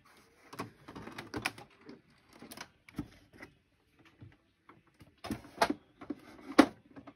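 Irregular plastic clicks, knocks and rustles of an Epson ET-3850 inkjet printer being handled and opened, with the loudest knocks a little past the middle.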